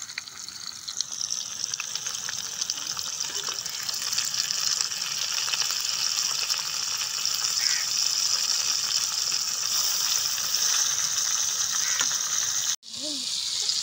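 Masala-coated chicken pieces sizzling as they fry in hot oil in an aluminium pan on a portable gas burner: a steady, high hiss that builds over the first few seconds, then holds. It breaks off for an instant near the end.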